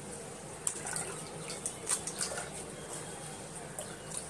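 Coconut milk trickling from a steel mesh strainer into a steel pot as wet ground coconut is squeezed by hand, with a few light clicks.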